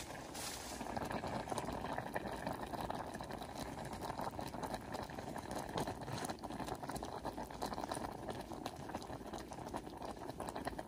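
A pot of broth boiling: a steady bubbling made of many small pops.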